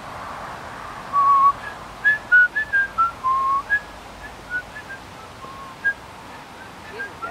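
A person whistling a short, wandering tune: a string of brief notes hopping up and down in pitch, starting about a second in and thinning out near the end, over a soft hiss at the start.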